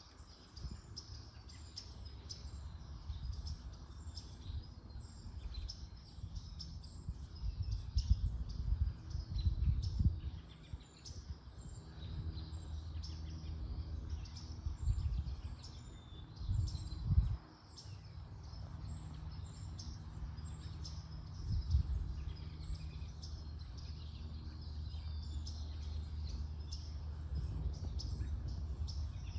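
Small birds chirping and twittering, many short calls over one another, with low rumbling gusts of wind noise that swell several times. A steady low hum sits underneath in the second half.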